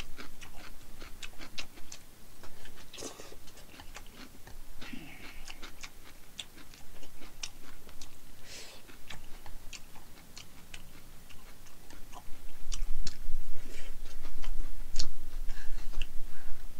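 Eating sounds from a plate of jjajang noodles: chewing, with sparse sharp clicks of chopsticks against the dishes and a few short slurps.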